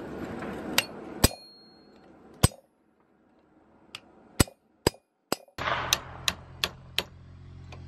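Blacksmith's hammer striking hot steel on an anvil: about a dozen sharp metallic clangs at an uneven pace, with a pause of over a second after the first few. One early blow leaves a brief high ring.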